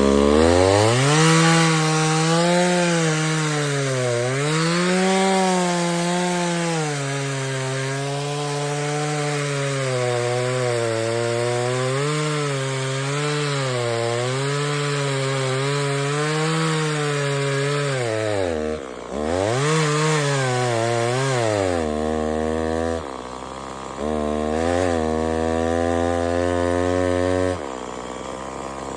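Chainsaw cutting wood under full throttle, its engine pitch sagging and recovering again and again as the chain bites into the cut. About two-thirds of the way through it drops off briefly and revs back up, then runs lower and steadier with a few short revs.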